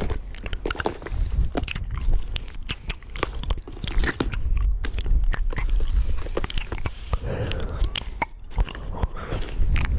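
Paper and tape being handled, crinkled and pressed close to the microphone: a dense run of irregular crackles and clicks.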